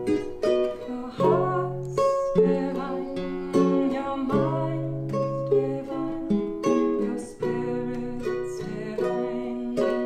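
Acoustic music of a small ukulele-sized string instrument and an acoustic guitar strummed together in a steady rhythm, the chords ringing and fading between strokes.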